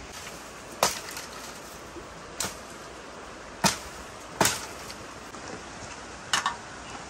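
Wood campfire crackling: five sharp pops scattered over a few seconds above a steady low hiss.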